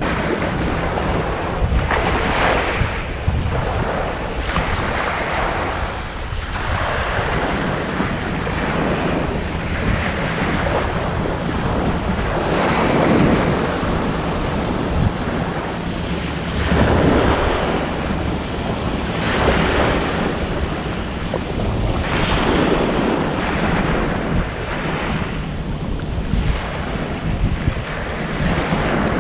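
Waves washing ashore in surges every few seconds, with wind buffeting the microphone and a low steady hum underneath.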